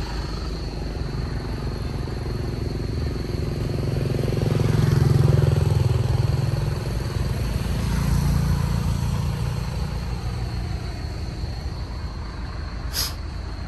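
Street traffic: a steady low rumble of vehicles, swelling as a vehicle passes about four to seven seconds in and again briefly around eight seconds. A single sharp click comes near the end.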